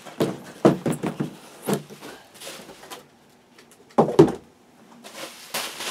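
Cardboard box being opened by hand: taps and knocks of the flaps and lid, two louder thumps about four seconds in, then a sliding rustle near the end.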